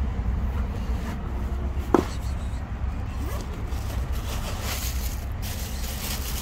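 Steady low outdoor rumble, like distant street traffic, with one short sharp sound about two seconds in.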